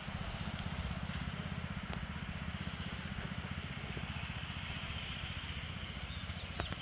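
A small engine running steadily with an even low pulsing, with a few faint clicks.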